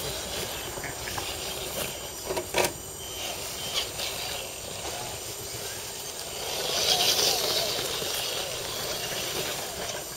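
Electric motors and geartrains of scale RC crawler trucks whining as they crawl up a muddy trail, growing louder about six to eight seconds in as the Sand Scorcher-bodied buggy climbs close. There are a couple of sharp knocks about two and a half seconds in.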